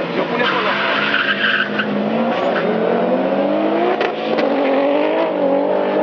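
Race car engine accelerating hard, its pitch climbing and then dropping at each gear change, about every one to two seconds. A hissing noise sits under it for the first couple of seconds.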